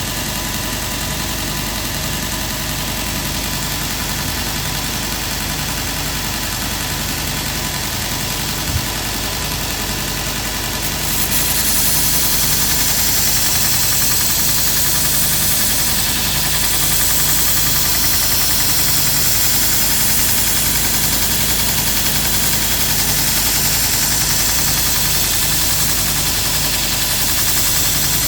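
Grizzly 2x42 belt grinder running steadily while a steel lopper blade is ground against the slack part of the belt. About eleven seconds in, the grinding hiss grows louder and brighter and holds there. There is a single short click just before.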